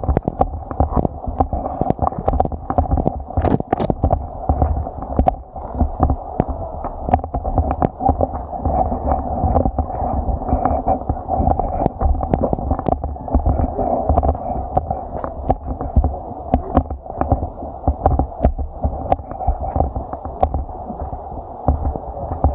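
Muffled, steady low rumble of moving water with frequent knocks and clicks, sounding dull as if heard by a camera in or under the water.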